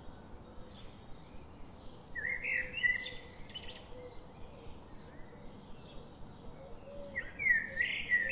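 Bird chirping: a cluster of short, high rising calls about two seconds in and another near the end.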